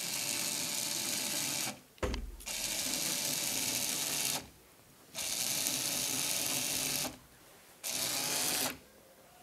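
A small programmable floor robot's gear motors whirring as it drives along its programmed path. The whirring comes in four stretches with short silent pauses between them, one for each step or turn it carries out in turn.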